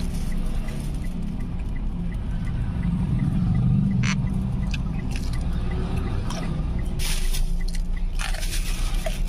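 Steady low hum of a car idling with its air conditioning running, heard inside the cabin. Over it, a crisp bite into a fried banana fritter about four seconds in, then chewing close to the microphone.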